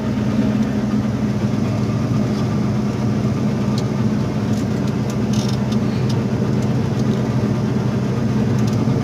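Combine harvester running steadily, heard from inside its cab, a constant low engine hum while it unloads grain through its auger. A few faint ticks about halfway through.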